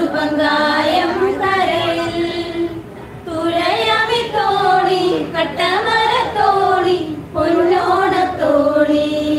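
Women singing a Malayalam sea song together into a microphone, in long held phrases with two short breaks for breath, about three and seven seconds in.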